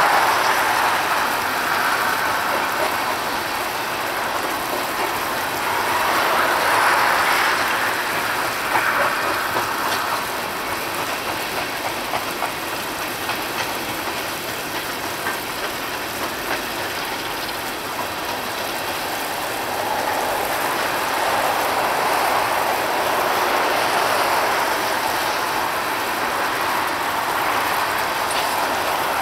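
Coal cars of a freight train rolling past, their steel wheels on the rails making a steady rumbling hiss that swells and fades, with occasional sharp clicks.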